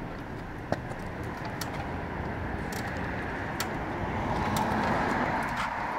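Street traffic: a car passing, its noise swelling and fading about four to five seconds in. Over it come a few light clicks and one sharper knock about a second in, from a bicycle frame being twisted against a steel U-lock.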